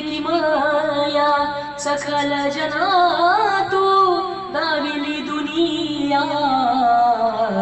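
A man's voice singing a Marathi devotional song to Vitthal into a handheld karaoke microphone, in long, ornamented held notes with gliding pitch, over a steady low tone.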